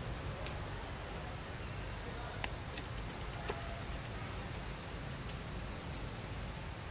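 Insect chorus in the trees: a steady high shrill with a lower buzzing that swells and fades every second or two. A few faint clicks come between two and a half and three and a half seconds in.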